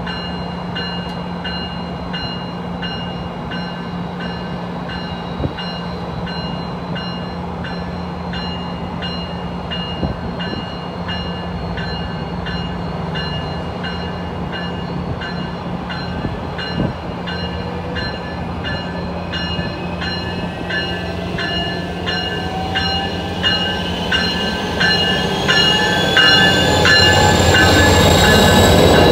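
Amtrak Pacific Surfliner train behind a Siemens Charger diesel locomotive rolling slowly into the station, its bell ringing steadily at about two strokes a second over a low engine hum. It grows louder over the last few seconds as the locomotive draws alongside, with rising whines and wheel squeal.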